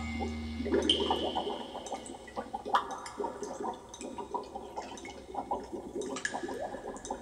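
Irregular gurgling and splashing water sounds, with a brief high tone about a second in, reproduced over hi-fi loudspeakers.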